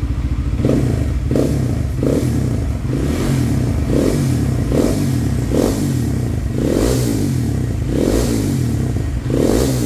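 Honda CB150X's single-cylinder engine idling and revved in about a dozen quick throttle blips, roughly one a second, through a gutted (bobok) Kawasaki Ninja 250 muffler on a custom-made header pipe.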